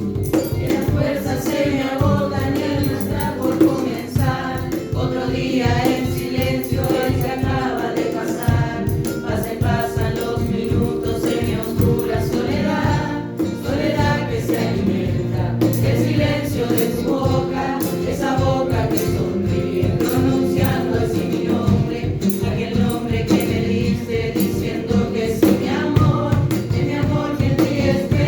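A song with a group of voices singing together over a steady beat.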